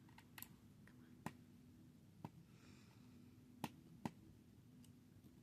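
Faint, sharp clicks and taps from small screws and a screwdriver on a laptop's case during reassembly: about five separate clicks, the loudest two close together near the end, against near silence.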